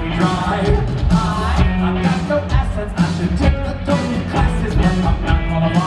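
Live rock band playing: a lead singer over electric guitars and a drum kit, heard from the audience seats.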